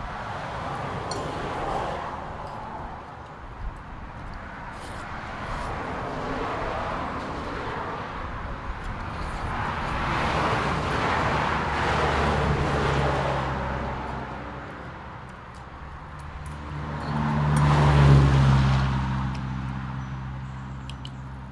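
Road vehicles driving past one after another, the sound swelling and fading several times. The loudest pass is near the end, with a steady engine hum clearly heard.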